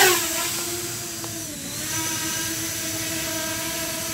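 SJRC F11S quadcopter's brushless motors and 7035 cinelifter propellers at take-off: loudest at the start as it lifts off, then a steady buzzing whine as it hovers. The pitch sags briefly about one and a half seconds in, then recovers.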